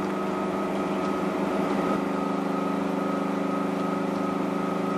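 Bottom-load water cooler's water pump running during priming with a steady hum, still a little noisier because it has not yet drawn water up from the bottle. The hum wavers slightly at first and settles into an even drone about two seconds in.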